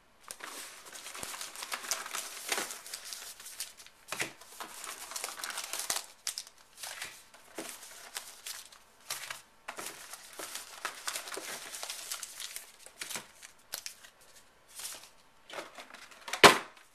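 Wrapped trading-card packs crinkling and rustling as they are handled, lifted out of their box and set down in stacks on a table, with a sharp knock near the end.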